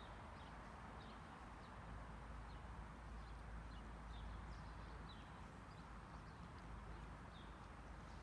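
Faint outdoor ambience: a steady low hiss and rumble, with small birds giving short, high, falling chirps every fraction of a second.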